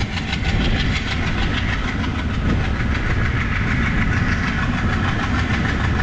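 Diesel locomotive hauling an express train, its engine running steadily under load, heard from an open coach door together with wheels clattering over the rails and wind rush.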